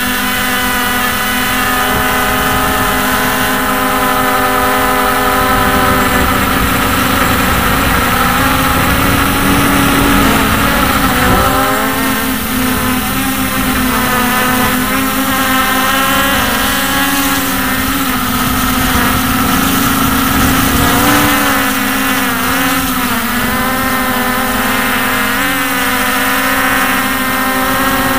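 Hubsan H501S quadcopter's four brushless motors and propellers whining in flight, the pitch rising and falling as the throttle changes, with the biggest swings about halfway through and again after about three-quarters.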